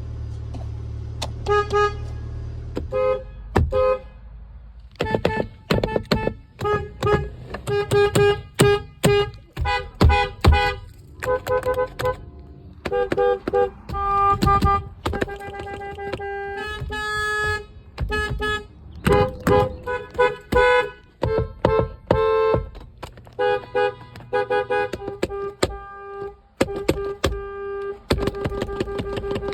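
Car horns honked in many short toots and a few longer held blasts, at an uneven rhythm.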